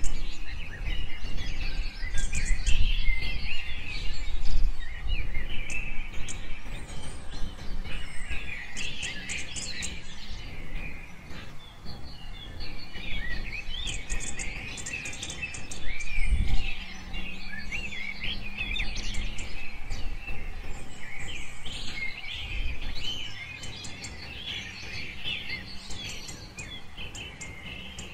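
A large flock of migratory waterbirds on a lake, many overlapping chirping calls. A low background rumble runs underneath, with a steady low hum starting a little past halfway.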